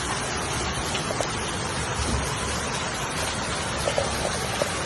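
Steady rushing noise, with a couple of faint short knocks near the end.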